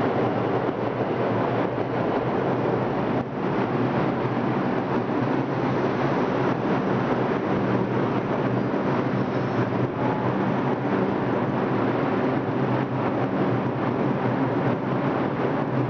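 New York subway train running alongside the platform: a loud, steady rumble of wheels on rail and car noise, with no sudden changes.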